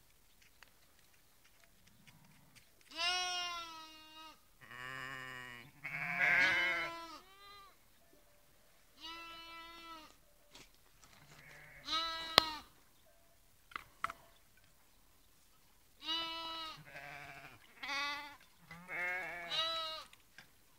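Sheep and lambs bleating: about a dozen separate wavering calls, some deeper and some higher-pitched, with gaps between them. One sharp click comes about halfway through.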